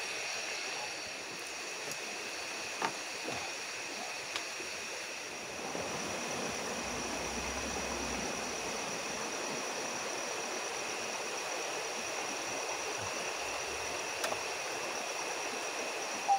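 A river flowing with a steady rush of water, under a steady high-pitched drone of night insects. A few small knocks come from close by.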